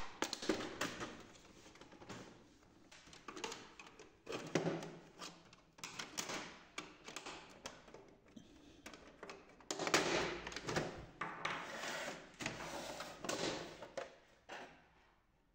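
Plastic side panel of an HP LaserJet M234 printer being pried off with a flat screwdriver: scattered clicks and scrapes as its snap hooks release, then, from about ten seconds in, a denser few seconds of plastic scraping and rattling as the panel is pulled away.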